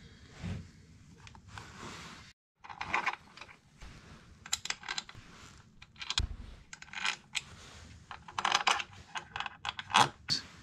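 Bolts, sockets and hand tools clinking and rattling in short, irregular bursts as an engine's side cover is bolted back on.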